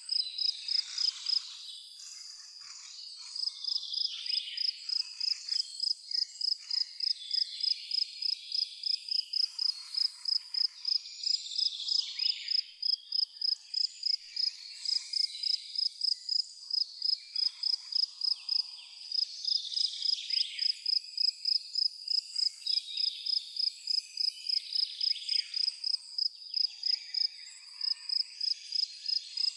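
A cricket chirping in an even, rapid train of high chirps, a few a second, pausing briefly a couple of times. Birds call on and off behind it.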